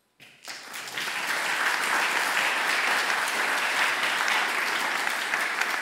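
Audience applauding. The clapping starts a moment in, quickly builds and then holds steady.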